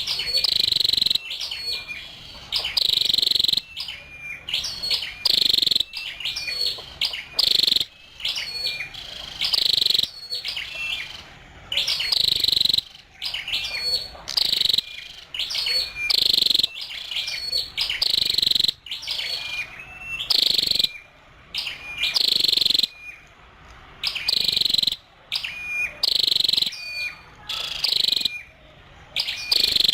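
Female flowerpecker calling: short, sharp, high chips repeated about once a second, sometimes two close together.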